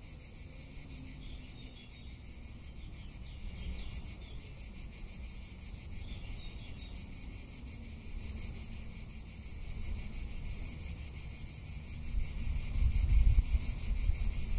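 Cicadas singing: a steady, high-pitched, finely pulsing buzz. Wind buffets the microphone in low gusts that grow louder near the end.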